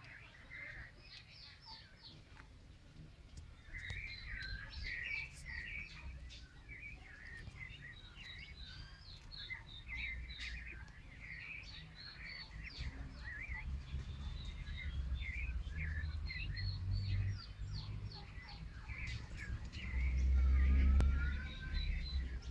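Small birds chirping in many short, quick calls throughout, over a low rumble on the microphone that swells loudest about twenty seconds in.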